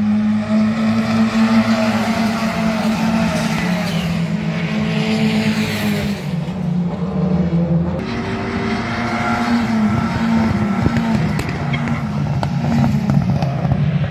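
Race car engines running at speed on the circuit as cars pass, their pitch rising and falling, over a steady low drone.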